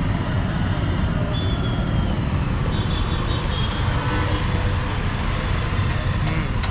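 Steady low rumbling background noise, with a faint high steady whine above it.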